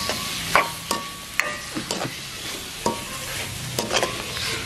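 Spatula scraping and knocking against a metal kadai as chopped tomatoes, onions and dried chillies are stirred, with a steady sizzle of the vegetables frying in oil underneath. The strokes come irregularly, several each second.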